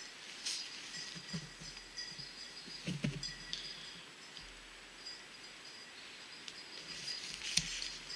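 Quiet winter-woods ambience: a faint steady high hiss and whine with a few soft rustles and knocks, the loudest about three seconds in and another near the end.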